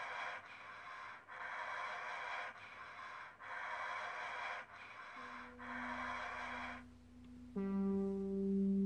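Heavy breathing, a breath about every second, in regular noisy gasps that stop about seven seconds in. Low held musical notes come in about five seconds in, with a louder, deeper note entering near the end.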